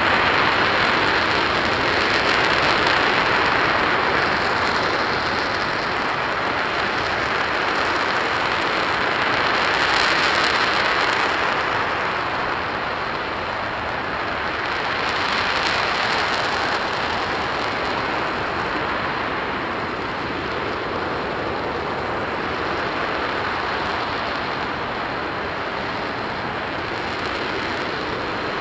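RS-25 liquid-hydrogen/liquid-oxygen rocket engine firing at full thrust: a steady, dense rushing noise with no breaks, swelling gently now and then.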